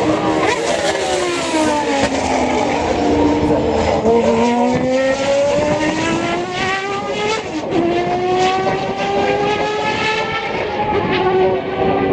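Toyota TS010 race car's 3.5-litre V10 running hard. The engine note falls over the first few seconds, climbs steadily, drops sharply once about seven and a half seconds in as a gear is changed, then climbs again.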